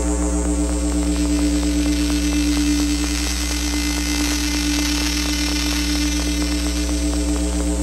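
Electronic drone from a drone-box synthesizer run through Kaoss Pad effects: a steady low hum under a stack of held tones with a fast fluttering texture. The brightest middle tone dims about three seconds in while a hiss in the highs swells and fades back.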